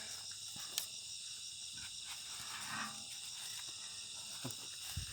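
Steady, high-pitched chorus of insects, with a single sharp click about a second in.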